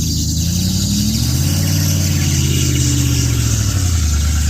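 An engine that has just started, revving up and down twice before settling back to a steady idle near the end.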